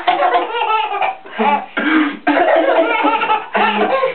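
A young child coughing in a string of short bursts, mixed with laughter. The coughs are put on for fun rather than from illness.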